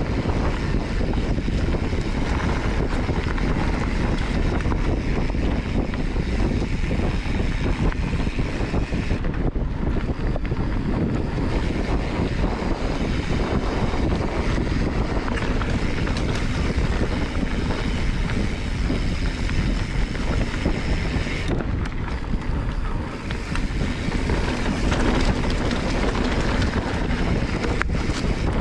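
Wind buffeting the microphone of an action camera during a mountain bike ride on a dry, loose dirt trail, mixed with the steady noise of the tyres on the dirt and many small rattles and knocks from the bike.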